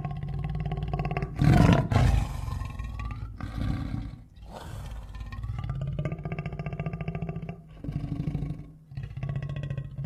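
King Caesar's monster roar sound effect: two loud roars close together about a second and a half in, then quieter roars around the middle, over a steady droning tone.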